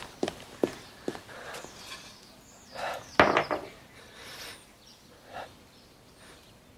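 Quick footsteps on a hard floor, a few sharp steps in the first second, then one louder sharp knock about three seconds in, with a few fainter knocks after it.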